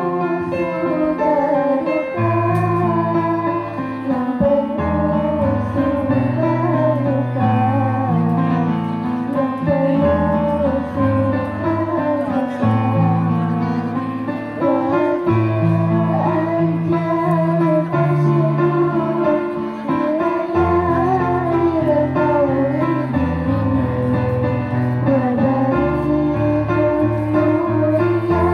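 Girls singing a melody into microphones, accompanied by an electronic keyboard holding low bass notes and chords under the voices.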